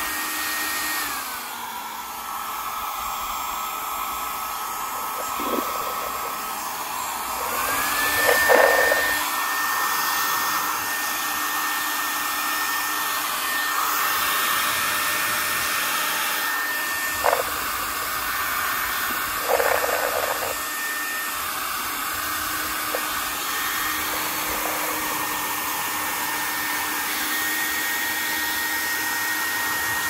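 Aniekin 1875-watt ionic hair dryer running: a steady rush of air with a high motor whine. About a second in the whine glides down as the fan drops to a lower speed, and a few seconds later it rises back to full speed. A few short clicks come from handling the dryer.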